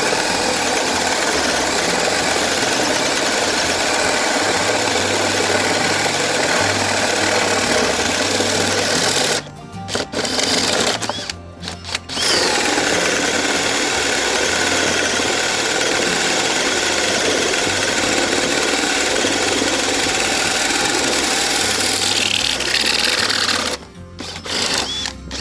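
Stanley FatMax SBD715D2K brushless cordless drill driving a 55 mm hole saw through wood, running steadily under load. It stops twice briefly about ten seconds in, then again near the end.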